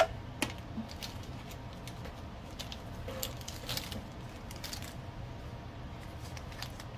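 Marker pens and papers handled on a wooden tabletop: a sharp click at the start, another about half a second later, then scattered soft taps and rustles, over a low steady hum.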